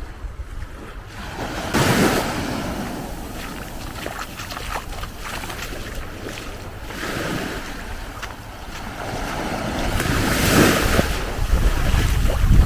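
Sea waves breaking and washing up the shore in surges a few seconds apart, with strong wind rumbling on the microphone.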